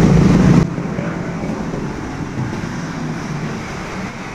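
Motor vehicle engines running in street traffic, louder for about the first half second, then a steadier, quieter hum.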